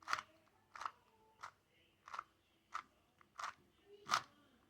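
Speedcube layers being turned by hand through an algorithm: seven short plastic clicks, about one every two-thirds of a second.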